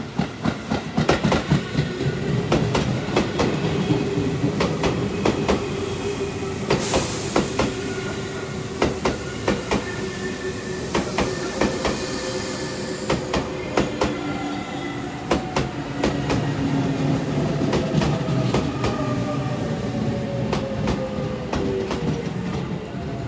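Tobu 9050 series electric train pulling into a station: steel wheels clicking over rail joints and points above a steady rumble, with motor tones slowly falling in pitch as it brakes to a stop.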